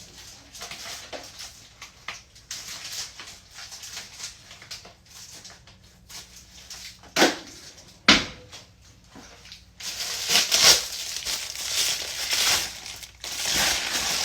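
Packaging being opened with scissors and pulled apart: scattered rustling, two sharp snaps about seven and eight seconds in, then a louder stretch of steady crinkling and tearing near the end.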